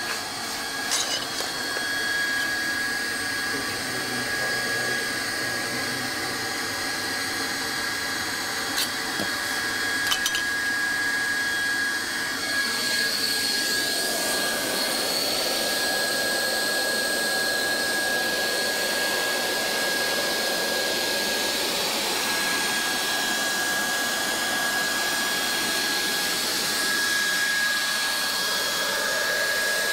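Hot-air plastic welding gun for vinyl flooring blowing steadily, with a steady high whine from its blower. A few light clicks in the first ten seconds.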